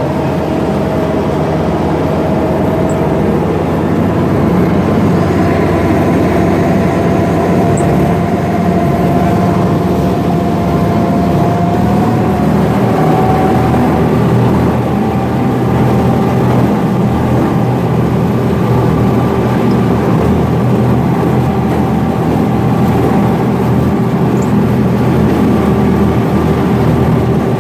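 Engine of an amphibious duck boat running steadily while the boat cruises on the water, with a thin whine that creeps slightly up in pitch.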